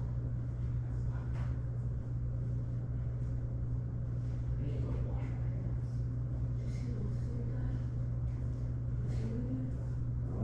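A steady low hum, even and unchanging, with faint low voices now and then.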